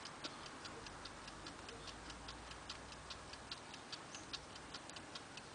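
A mechanical timepiece ticking faintly and evenly, about six ticks a second.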